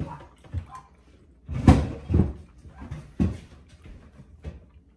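A door or cupboard being opened and shut: several separate knocks and thuds, the loudest about one and a half to two seconds in.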